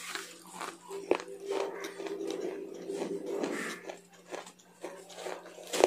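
Close-miked chewing of raw leafy greens: a run of crisp, wet crunches and small crackles as the mouthfuls are bitten and chewed.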